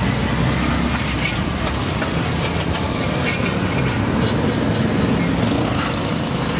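Street traffic noise: motor vehicles running close by in a steady low rumble, with a few faint clicks and clatters.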